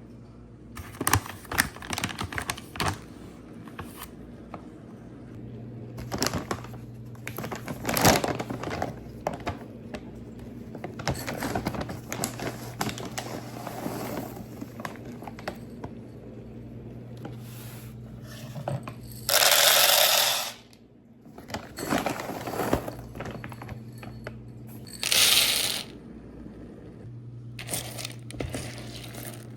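Household objects being handled and set down: scattered clinks, knocks and scrapes over a steady low hum, with two short loud hissing bursts, one about two-thirds through and a shorter one a few seconds later.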